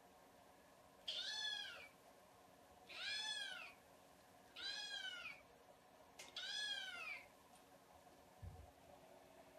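Young kitten meowing four times, high-pitched calls that each rise and then fall in pitch, one about every second and a half. A short soft thump near the end.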